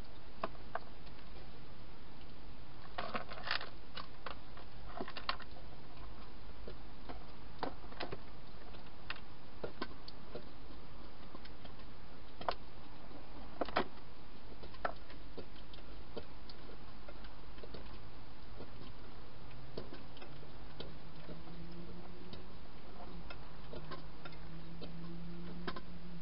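Sparse, irregular clicks and taps, a few in quick clusters, over steady microphone hiss: a hedgehog moving and eating dry food inside a plastic feeding box. Near the end a faint low drone comes in, rising slowly in pitch.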